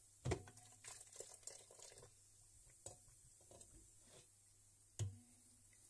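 A mug knocking twice against a steel pot, about a third of a second in and near the end, with faint splashing and crackling in between as citric acid solution is scooped and poured over a scaled water-heater flask.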